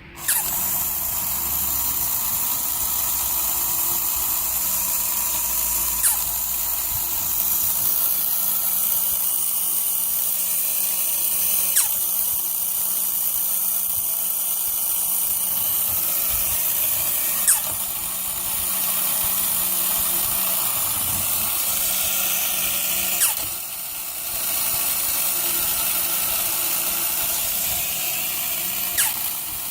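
Linemar battery-operated sneezing bear toy running: its small electric motor and gear train whir steadily, with a sharp click about every six seconds as the mechanism cycles through its head-and-body sneeze motion.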